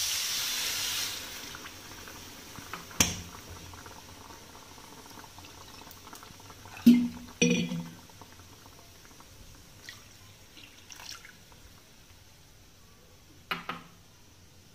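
Water poured from a glass bowl onto sugar in a nonstick kadai for about a second, the start of the sugar syrup. A single sharp knock follows about three seconds in, then a few brief clatters.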